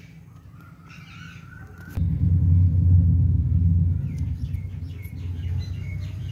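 Low outdoor rumble that jumps abruptly louder about two seconds in and then slowly eases, with birds chirping over it.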